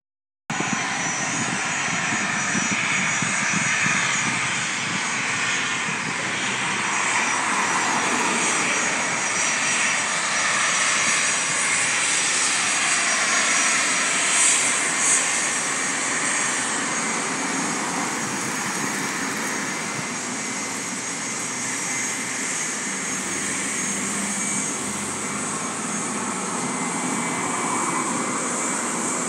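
Bombardier Challenger 300's twin Honeywell HTF7000 turbofans running at taxi power: a steady jet engine sound with a thin high whine over it, swelling and easing slightly as the jet moves and turns.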